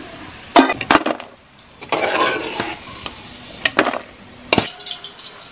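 A metal spatula clanks and scrapes against a wok and a metal bowl several times as fried banana chips are lifted out of the oil and dropped in. The hot frying oil sizzles underneath.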